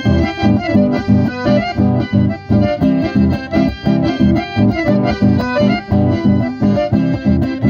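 Live instrumental dance music: two accordions playing a lively tune together over an acoustic guitar, with a steady bouncing beat.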